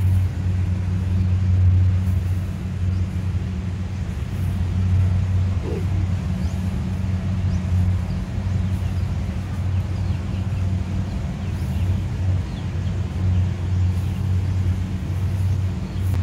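An engine running steadily at one speed, a low drone without a break.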